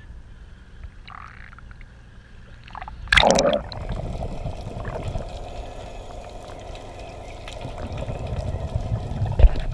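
Water lapping against the camera at the surface, then a loud splash as it plunges under about three seconds in. After that comes muffled underwater sound: gurgling water with a faint steady hum and low rumble.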